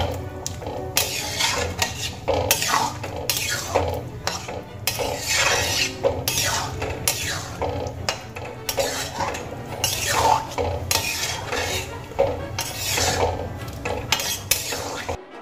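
Metal spatula scraping and stirring green peas and potatoes through a thick masala in a metal kadai, in quick repeated strokes: the peas being fried together with the spices. The stirring stops suddenly near the end.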